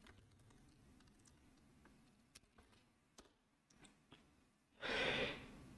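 Faint computer keyboard keystrokes, a few scattered single clicks, then a short breathy hiss of noise near the end.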